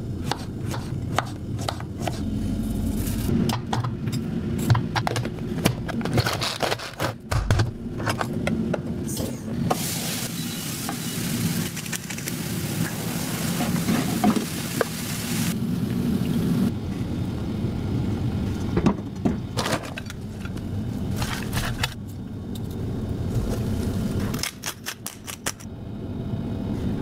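Kitchen cooking sounds: a knife slicing vegetables on a cutting board in quick knocks, then food sizzling in a frying pan for about five seconds, then a few more knocks and clicks near the end.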